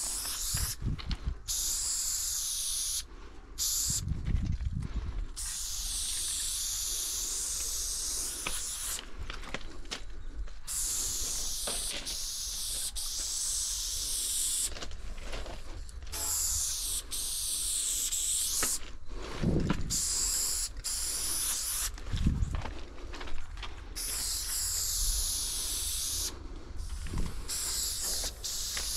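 Aerosol spray-paint can hissing in long bursts of several seconds each, cut by short breaks where the nozzle is let go, as lines are painted on a freight car. A few dull low thumps come between the bursts.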